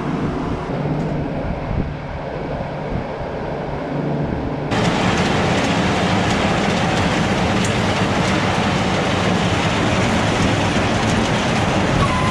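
Feed wagon unloader running: its slatted chain conveyor, on a new chain and new plastic end rollers, sets up a steady dense rattle that starts abruptly about five seconds in and runs smoothly, without the chain jumping. Before that there is a lower, steady mechanical hum.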